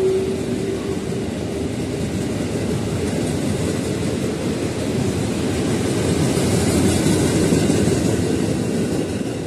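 KRL electric commuter train running past at speed: a steady rumble of wheels on rail, growing a little louder in the second half as the cars go by. A faint steady tone fades out during the first couple of seconds.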